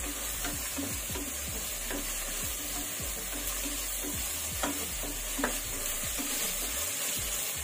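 Onion, chilli and tomato masala frying in oil in an aluminium pressure cooker, stirred with a wooden spatula: a steady sizzle with the scrape of the spatula, and two knocks of the spatula against the pot a little past the middle.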